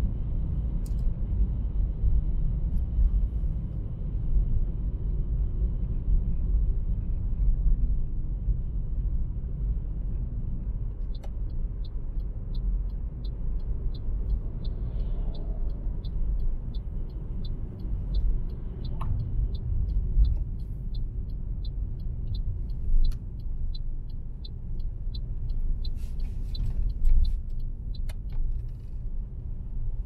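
A car driving along the road: a steady low rumble of tyre and engine noise. From about a third of the way in, a regular light ticking of about two a second runs for some fifteen seconds, and a few sharp clicks follow near the end.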